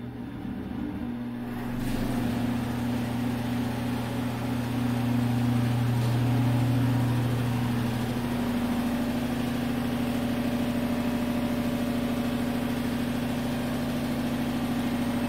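Dayton mid-blower ceiling exhaust fan behind an old Penn Zephyr grille spinning up from start: a loud motor hum and rush of air that builds over the first two seconds, then runs steadily and really loud, with the deepest part of the hum easing off about eight seconds in. The fan is a rattly one.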